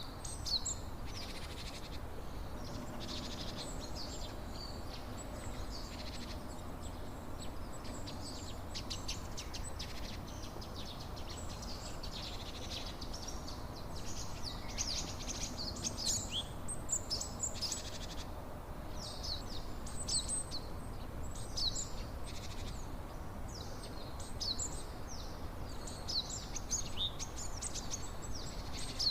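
Several songbirds chirping and trilling in quick, repeated phrases over a steady rushing background noise.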